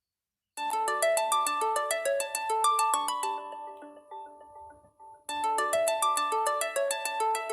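LG phone ringtone: a quick melody of short, ringing notes that starts about half a second in, fades out, and begins again about five seconds in.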